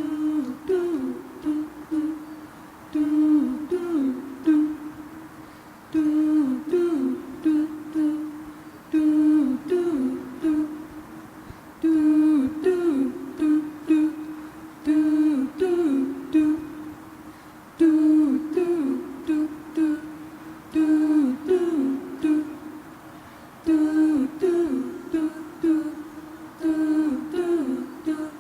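Wordless a cappella singing: a short hummed melodic phrase repeated over and over, about once every three seconds, as a circle-song ostinato.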